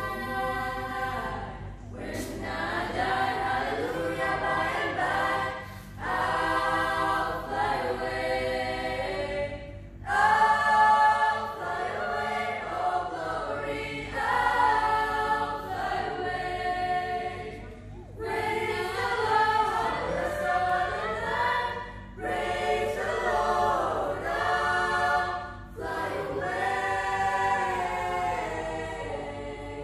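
Mixed school vocal ensemble of boys and girls singing a cappella in harmony, in phrases with short breaks between them.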